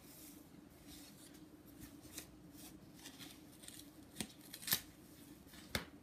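A mailed package being opened by hand: faint rustling of its paper and plastic wrapping, with a few sharp clicks, the loudest about four to five seconds in.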